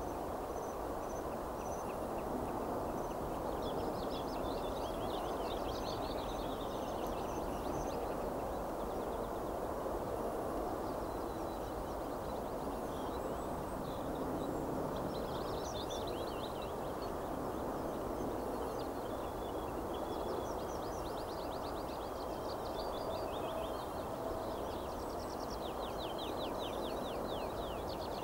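Small songbirds singing several rapid, high trills a few seconds apart over a steady low background noise.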